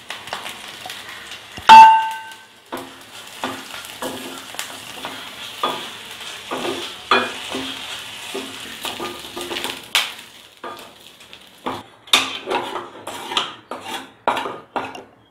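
Chopped shallots, cumin and curry leaves sizzling in hot oil in a stainless steel kadai, with a spatula stirring and clinking against the steel pan in quick repeated strokes. A single loud metallic clang with a ringing tone about two seconds in.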